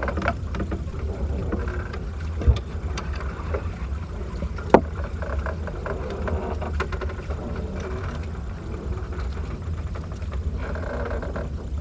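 Small boat's engine running with a steady low rumble. A dull knock comes about two and a half seconds in, and a sharp click a little before five seconds.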